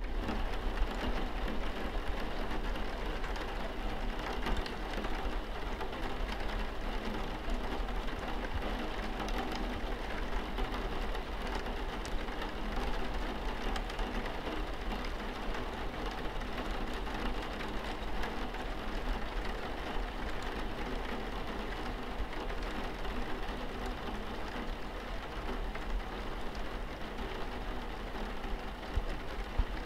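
Steady rain with a low hum beneath it.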